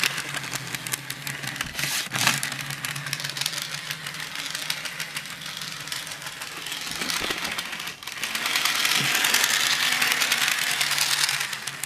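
Model diesel locomotive running on sectional track: a steady electric motor hum and gear whir with scattered clicks from the wheels, getting louder about eight seconds in as it comes close.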